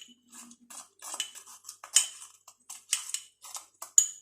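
A spoon stirring a lemon-juice, honey and clove mixture, clinking repeatedly and unevenly against the side of its container, several clinks a second.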